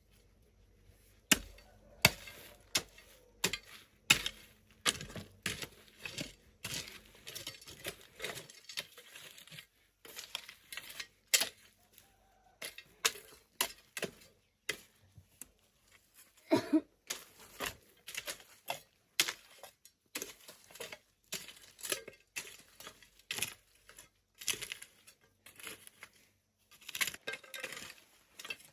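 An irregular series of sharp knocks and clinks, one to three a second, with a heavier thud about two-thirds of the way through.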